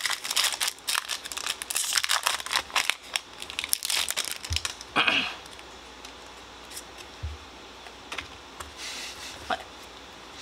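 Foil Pokémon trading-card booster pack wrapper crinkling and tearing as it is ripped open by hand, for the first four seconds or so. After that it is quieter, with a few light clicks of the cards being handled.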